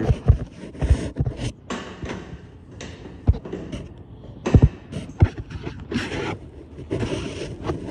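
Aluminum trailer ramp gate being swung up and latched: a string of sharp metal knocks and clanks with scraping and handling noise between them.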